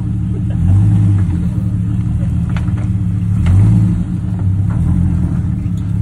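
Off-road vehicle's engine running at low revs under load as it climbs a steep rock ledge, revving up in short bursts about a second in and again near the middle.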